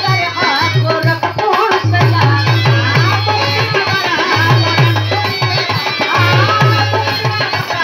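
Indian folk song played on dholak and harmonium: the dholak keeps a steady run of deep strokes under the harmonium's held notes, with a woman's voice singing winding lines over them.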